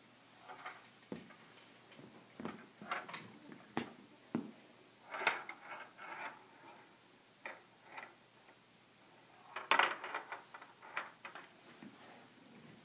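Perplexus Epic maze ball turned in the hands: its small metal ball rolls and clicks along the plastic tracks inside, with knocks from fingers shifting on the clear plastic shell. The clicks come irregularly, with louder clusters about five seconds and ten seconds in.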